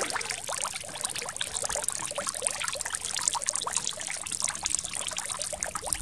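Thin jet of water from a small solar-powered fountain pump trickling and splashing into a shallow birdbath basin, steady, with fine spattering splashes.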